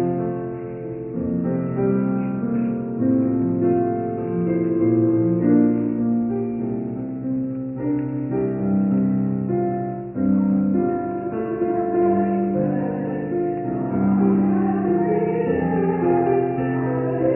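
Keyboard instrument playing slow, held chords, the start of a hymn in the service; voices join in singing about fourteen seconds in.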